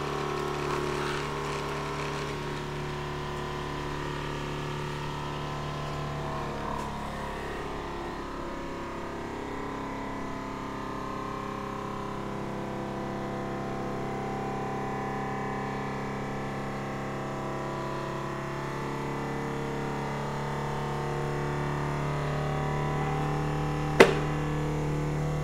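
Vacmaster VP200 chamber vacuum sealer's pump running with a steady hum, struggling to draw a vacuum because the lid gasket is not sealing; the owner suspects a loose gasket. A sharp click comes near the end.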